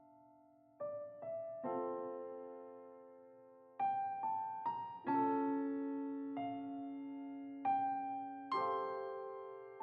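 Background music: slow, gentle piano playing single notes and soft chords, each left to ring and fade.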